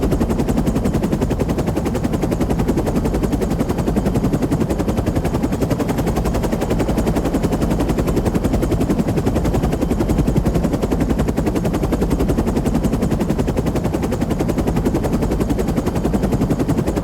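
Helicopter running with its rotor turning at speed, a steady fast blade chop over the engine, warmed up and ready for takeoff.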